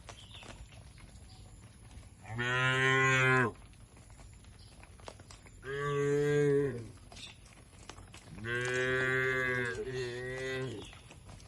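A cow mooing three times, each a steady low call about a second long. The third moo is the longest, at about two seconds, with a brief dip before it trails off.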